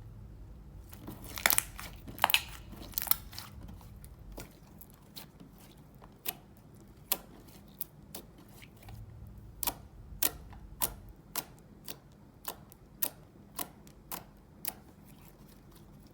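Slime being worked by hand, giving a series of sharp clicking pops: a loud cluster a second or two in, then pops about two a second in the second half.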